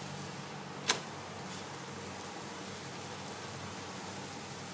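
Wheat-flour cheela sizzling faintly on a non-stick tawa, over a low steady hum. A single sharp click of the wooden spatula against the pan about a second in.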